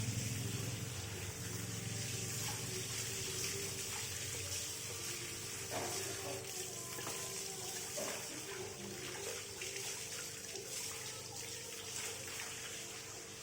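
Tap water running steadily over an audio mixer as it is washed, with a few light knocks now and then.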